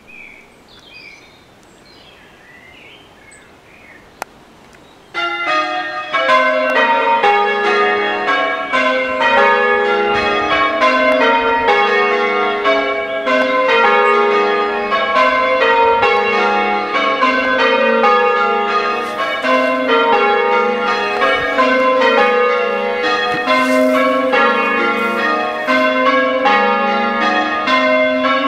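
A ring of six church bells starting up about five seconds in, then change ringing: the bells struck one after another in quick, even succession, round after round.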